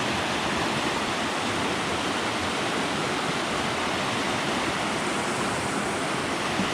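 Fast-flowing river rushing past, a steady, even roar of water.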